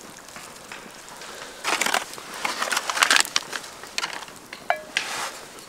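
Cooking gear being handled: irregular bursts of scraping and rustling, with a short metallic clink about three-quarters of the way through.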